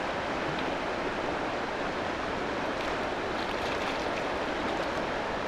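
River water rushing steadily past the bank, an even hiss of flowing water.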